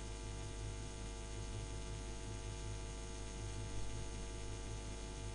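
Steady electrical mains hum with a faint buzz, an even background drone with no other sound in it.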